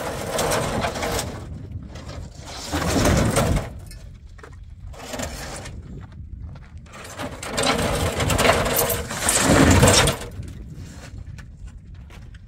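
Hollow concrete blocks scraped across a pickup truck's metal bed and set down with heavy thuds. The loudest bouts come about three seconds in and again from about seven to ten seconds in.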